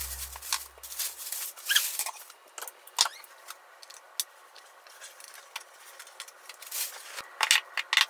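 A thin plastic bag and a clear plastic food container crinkling and rustling as they are handled, in short irregular rustles and light clicks.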